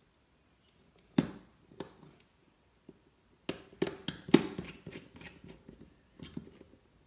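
Scattered light clicks and knocks of hands handling wires and small tools at a regulator circuit board while its output wires are connected. One sharp knock comes about a second in, and a quick run of clicks follows from about three and a half to four and a half seconds.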